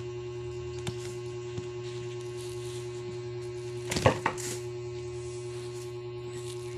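A small glass bottle clatters as a kitten knocks it over, a short cluster of sharp knocks about four seconds in, with a few faint taps before it. A steady electrical hum runs underneath.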